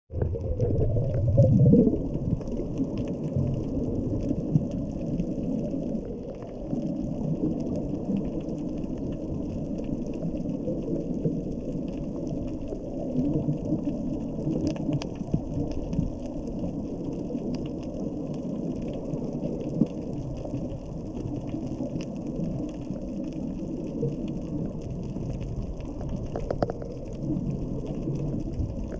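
Muffled underwater rumble and water noise heard by an action camera in its waterproof housing, steady throughout, with faint scattered clicks.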